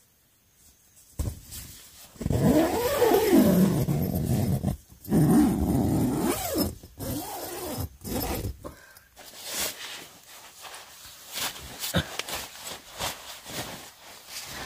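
Tent door zipper pulled closed in two long drags, its buzz rising and falling in pitch with the speed of the pull. Then softer rustling as the sleeping bag and the tent's nylon floor are handled.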